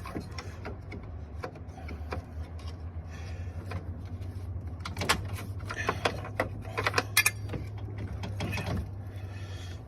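Irregular clicks and knocks of hand work on a car's radiator fan assembly, over a steady low hum; the sharpest clicks come about five and seven seconds in.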